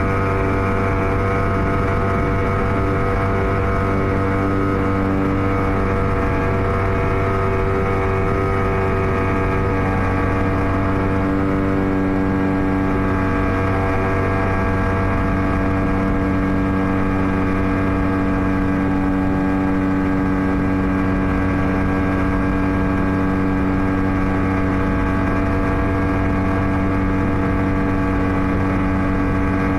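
Yamaha 40 hp outboard motor running steadily at high speed, pushing a passenger longboat, with the rush of wind and water underneath. The engine note shifts slightly about ten to twelve seconds in.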